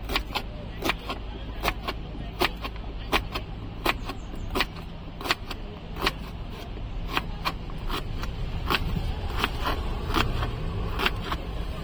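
Knife chopping food on a board: sharp chops about one or two a second, unevenly spaced, over a steady low rumble.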